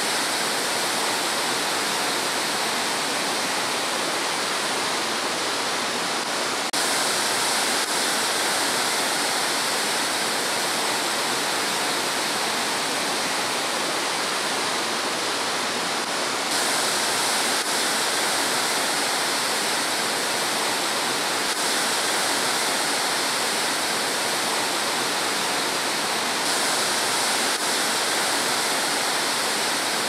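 A tall waterfall in full flow, plunging into a rock pool: a steady, loud rush of falling water, with a slight sudden change in its tone about every ten seconds.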